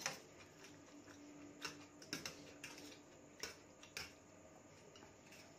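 Metal fork tapping and scraping on a steel plate while gathering noodles: a few light, irregular clicks a second or so apart.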